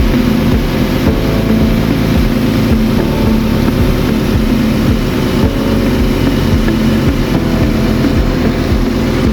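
Heavy truck diesel engine sound, a steady low drone.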